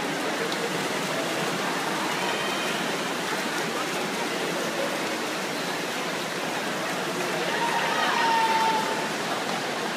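Spectators cheering and shouting at an indoor swim meet, over a steady wash of echoing pool-hall noise; a louder shout rises near the end.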